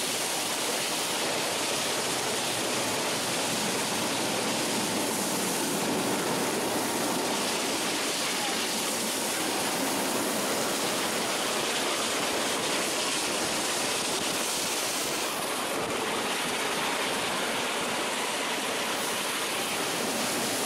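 Steady rushing noise of a train travelling at speed, heard from one of its windows: air rush and running noise, with no distinct beat.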